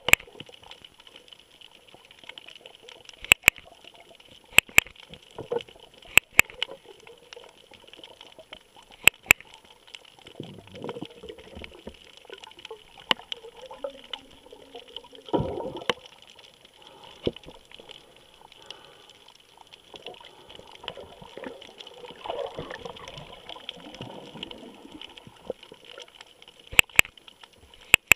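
Sharp clicks from a Drift HD Ghost action camera taking still images while it records video, in its underwater housing. They come every few seconds and bunch together near the end, over a faint underwater wash of moving water with an irregular swish now and then.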